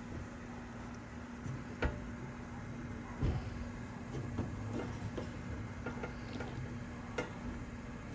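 A few light knocks and clicks, such as parts being handled around a vending machine, over a steady low hum.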